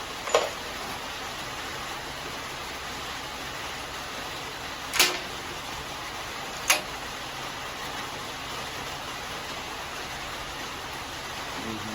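Three short, sharp knocks from carburetor parts and tools being handled during carburetor removal, one just after the start and two a second and a half apart in the middle, over a steady hiss.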